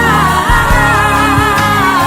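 Brazilian gospel song: a held, wavering melody line that slides downward, over steady bass notes and a regular beat.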